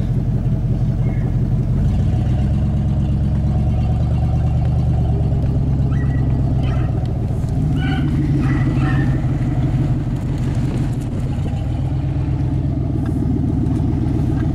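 Ford F-150 pickup's engine running, heard from inside the cab while driving slowly, its note shifting about two seconds in.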